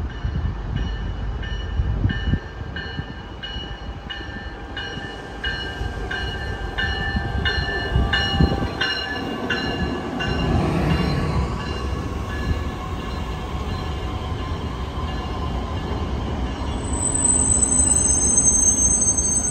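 A Metra Electric Highliner II bilevel electric multiple-unit train runs into the platform and slows to a stop. A bell dings steadily a little under twice a second for the first ten seconds or so. A high steady squeal comes in near the end as it comes to a stop.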